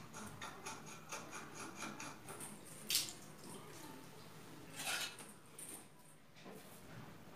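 Faint clicks and handling noises as an old wall-mounted shower head and its fittings are taken off, with two louder short scrapes about three and five seconds in.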